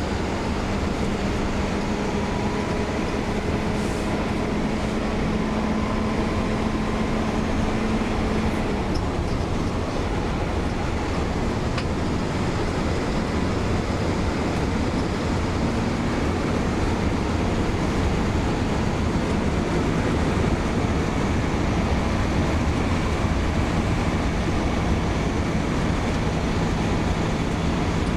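Iveco 170S28 bus under way, heard from inside the cabin: steady engine and road noise with a faint whine on top, one of its tones fading out about eight seconds in. The bus's turbo has an unusually loud, strident whine, which the owner puts down to a turbo problem the engine came with from the factory.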